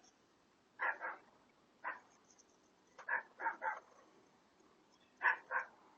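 A dog barking in short runs: two barks about a second in, one near two seconds, a quick run of three or four a little after three seconds, and two more near the end.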